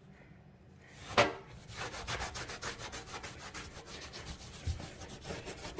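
A towel scrubbing crud off the sink deck with Windex, in quick rhythmic back-and-forth rubbing strokes that start about two seconds in. A short, sharp sound about a second in is the loudest moment.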